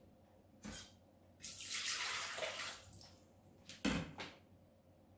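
Water poured from a glass into the stainless steel bowl of a food-processor cooking machine, a splashing pour of about a second and a half. It is followed about four seconds in by a sharp knock, the loudest sound, with a small click before the pour and another near the end.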